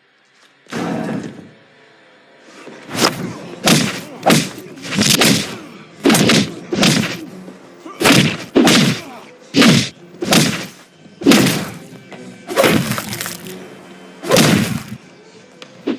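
Fight sound effects: a rapid series of heavy hits and thuds, about fifteen sharp blows coming irregularly about once a second or faster, after a brief silence at the start.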